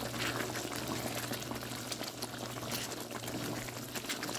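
Chicken karahi's tomato gravy simmering in the pan, with a steady patter of small bubbling pops and a silicone spatula stirring through it, over a steady low hum.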